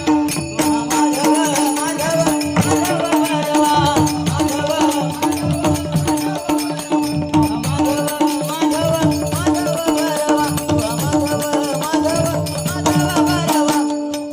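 Bhajan music: a steady held drone under a bending melody line, with a drum beat and jingling hand cymbals keeping the rhythm.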